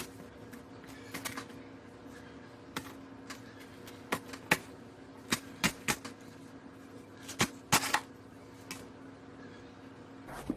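Irregular clicks, taps and light knocks of a cardboard box and packaging being handled, over a steady low hum. The sharpest clicks come in a few clusters around the middle and two-thirds of the way through.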